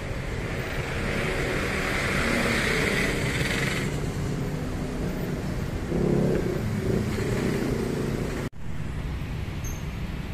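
Road traffic passing close by, cars and motorcycles, as a steady rumble with one louder passing engine about six seconds in.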